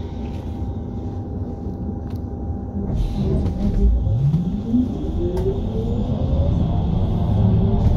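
HESS Swisstrolley 4 articulated trolleybus running on electric power over a low rumble. About halfway through, its electric traction motor's whine climbs steadily in pitch as the trolleybus accelerates.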